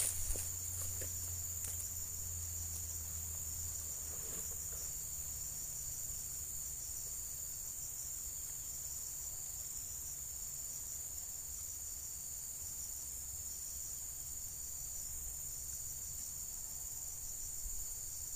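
Steady, high-pitched chorus of insects: several constant shrill drones layered on top of each other, unbroken throughout.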